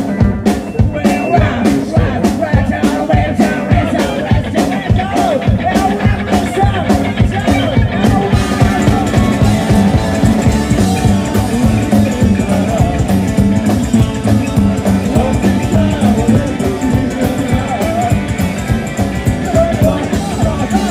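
Live rockabilly band playing: a steady drum beat, electric guitars and several voices singing together.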